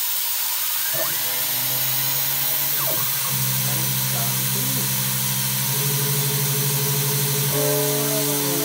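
A DIY CNC router's end mill takes a finishing cut around 6082 aluminium plate, giving a steady machining hum over the constant hiss of the lubricant spray. The hum grows stronger a little after three seconds in and shifts pitch near the end.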